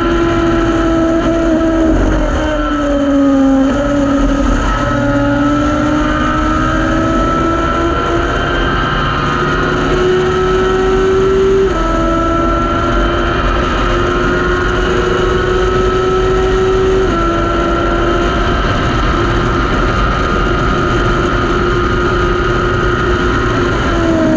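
Thunder Roadster race car's engine heard from the cockpit, pulling hard under full throttle. Its pitch dips in the first few seconds, then climbs steadily, drops sharply at two upshifts about halfway and two-thirds through (third to fourth, fourth to fifth), and starts falling off near the end as the driver lifts.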